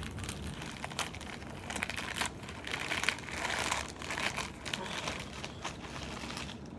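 White packaging crinkling irregularly as it is handled and pulled open by hand.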